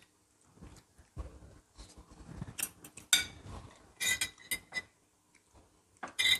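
Cutlery clinking against dishes: groups of sharp clinks, some with a short ring, about two and a half to three seconds in, again around four seconds in, and near the end.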